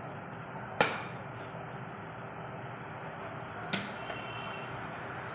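Sharp clicks of the Samsung Galaxy M01s's plastic back-cover clips snapping loose as a metal pick pries the cover off the frame: a loud snap about a second in and a smaller one near the end, over a steady low hiss.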